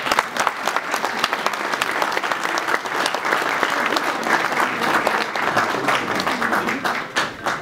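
Audience applauding, a dense spread of many hands clapping that stops abruptly, with a few single claps standing out near the end.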